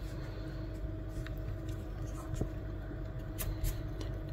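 A few faint clicks and taps of a plastic car key fob being handled, over a steady background hum.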